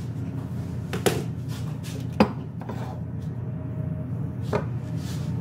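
Three sharp clacks of small hard objects knocking, the loudest about two seconds in, over a steady low hum, with a short hiss near the end.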